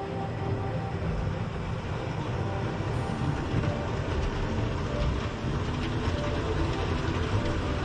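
OO gauge model trains running on the layout's track: a steady low rumble of small wheels on rail, scattered with little clicks.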